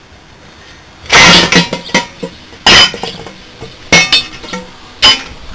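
Four loud metal blows on the steel shell of a Danfoss Maneurop reciprocating compressor, each ringing briefly, as the housing is broken open along a partial grinder cut.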